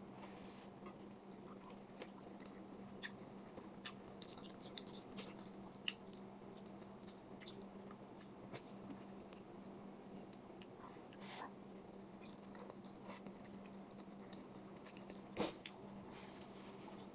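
A person chewing and eating close to the microphone: soft wet mouth sounds with many small scattered clicks, one sharper about six seconds in and the loudest about fifteen seconds in. A faint steady low hum lies underneath.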